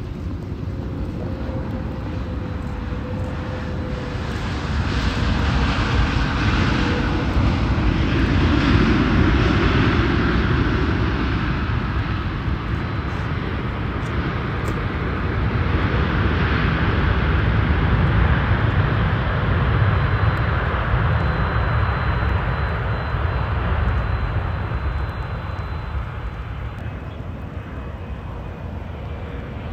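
Jet engines of a twin-engine widebody airliner landing on a wet runway: a steady jet rumble that swells louder twice, once around touchdown and again as the aircraft rolls out through spray, then eases off.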